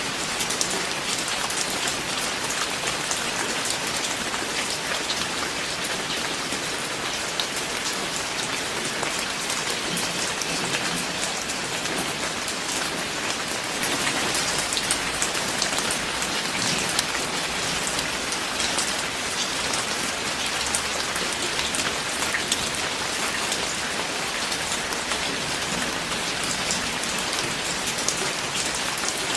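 Steady heavy rain, a dense patter of drops hitting a surface, growing a little louder about halfway through.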